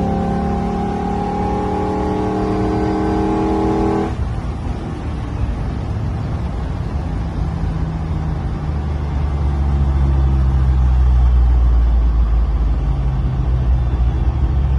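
Land Rover Defender's swapped-in 6.2 L LS3 V8 accelerating, its note climbing slowly for about four seconds and then dropping away abruptly. A low rumble follows and grows louder later on.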